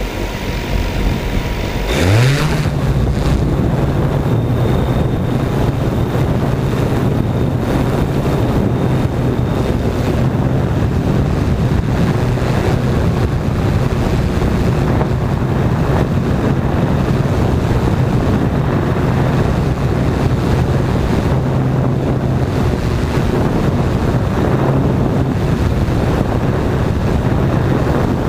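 Multirotor camera drone's motors and propellers spinning up with a rising whine about two seconds in as it lifts off, then a steady hum of the propellers in flight, with wind rushing over the microphone.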